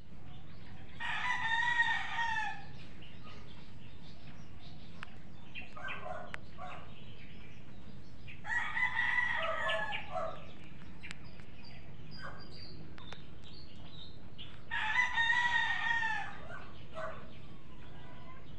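Rooster crowing three times, each crow about a second and a half long and roughly six to seven seconds apart, with fainter short calls in between.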